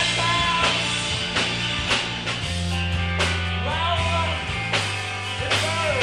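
Rock band playing live: drums strike a steady beat under a bass line, with sliding guitar or vocal notes above.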